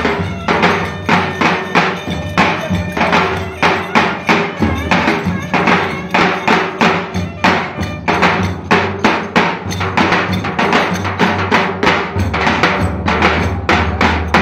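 Turkish davul drum music for a köçek dance: steady, evenly spaced drum strokes in a dance rhythm with a melody instrument playing over them.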